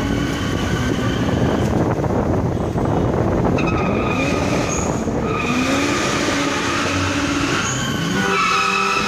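Car horns honking in long held blasts over the engine and road noise of cars driving in a convoy; an engine revs up in the middle.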